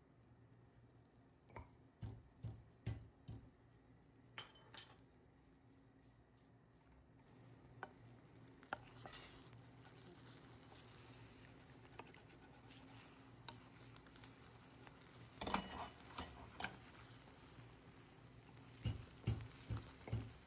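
Beaten egg frying faintly in oil in a frying pan, with scattered taps and scrapes of a wooden spatula against the pan as the egg is broken up and scrambled. A cluster of louder knocks comes about fifteen seconds in, and quick repeated taps come near the end.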